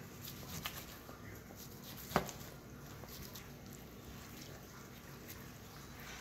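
Faint handling sounds of a knife slicing a tomahawk-cut cowboy ribeye steak, cooked to over 200 degrees like a brisket, and gloved hands pulling the meat apart on a wooden cutting board. One sharp knock about two seconds in.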